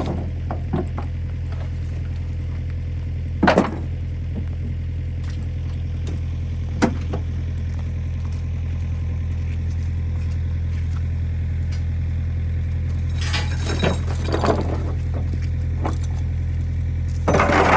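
Mini excavator's diesel engine running steadily with a low drone, with a few sharp metallic clanks now and then, clustering near the end.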